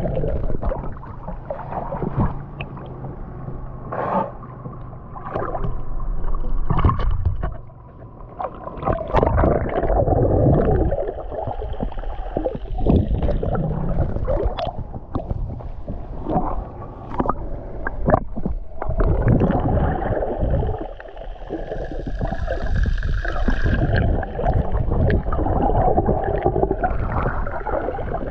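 Muffled water sloshing and bubbling, heard through an underwater camera held just below the surface, coming in irregular surges with scattered sharp knocks and swishes.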